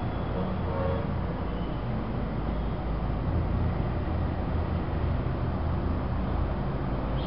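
Steady background rumble with an even hiss, no distinct events.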